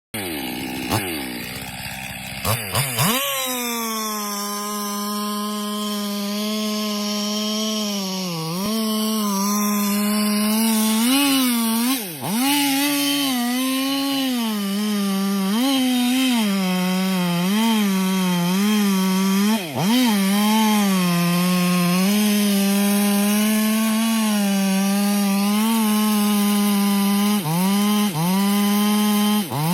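STIHL MS 881 two-stroke chainsaw revving to full throttle about three seconds in and cutting into a tree, its pitch sagging briefly several times under load. Near the end it is blipped in short revs.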